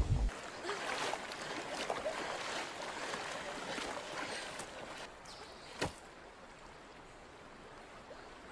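Water splashing and sloshing as a person crawls out of a shallow river. It fades after about five seconds to a faint, steady flowing-water hiss, with one sharp click about six seconds in.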